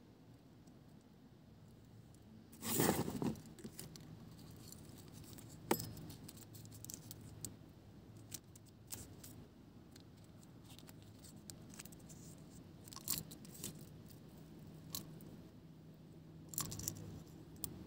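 Small survival-kit items handled in the hands: scattered clicks and rattles of small hard pieces such as a plastic vial and tweezers, with a louder rustle about three seconds in and another near the end.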